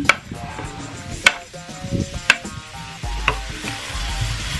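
Diced onion tipped from a wooden board into a stainless steel frying pan, the wood knocking sharply on the pan about four times roughly a second apart, then a wooden spatula stirring the onion as it starts to sizzle in the oil.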